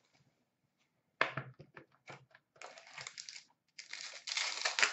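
Plastic wrapping of a trading-card pack crinkling and tearing as it is opened by hand: a few sharp clicks about a second in, then bursts of rustling, loudest near the end.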